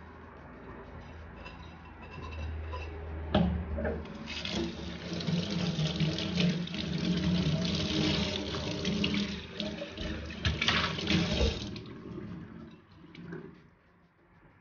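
Kitchen mixer tap running into the sink while a ceramic mug is rinsed under the stream. The water starts about four seconds in, just after a sharp knock, and is shut off about twelve seconds in. Light clinks of crockery come before it.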